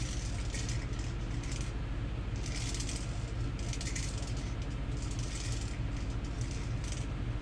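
Fishing line being pulled by hand up through an ice hole: short bursts of rustling and scraping, about once a second, over a steady low hum.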